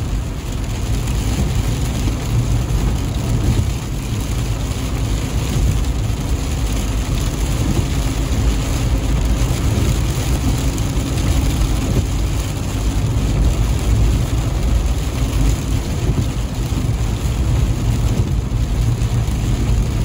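Steady road and engine noise of a car driving on a wet road in rain, heard from inside the cabin.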